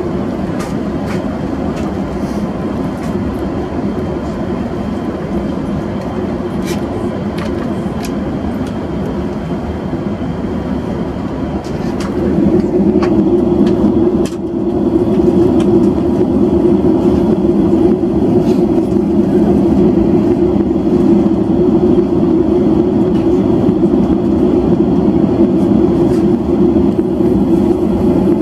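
Airbus A330 cabin noise during the descent: a steady rush of airflow and engine hum, which grows louder about twelve seconds in.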